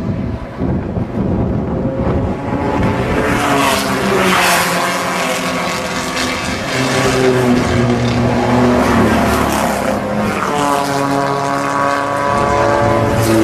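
Vintage racing car engines running hard as a pack of cars goes by on the circuit; the engine notes climb as cars accelerate about three seconds in and again near ten seconds, then sink as they pass.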